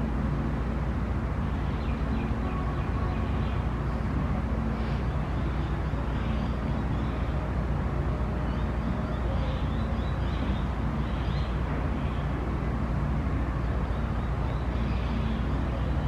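Steady low mechanical drone with a faint hum, of the kind distant traffic or machinery gives, with faint high chirps now and then.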